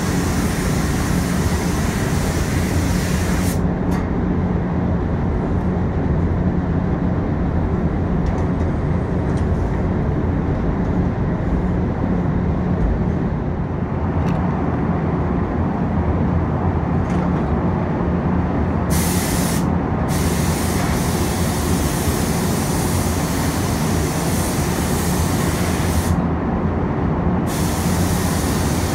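Paint booth ventilation running with a steady low hum, with a compressed-air paint spray gun hissing in spraying passes: one at the start, a long one after the middle and another near the end.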